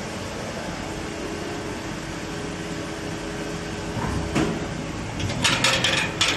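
Preform injection moulding machinery running with a steady hum, a knock about four seconds in, and a quick run of sharp clatters near the end.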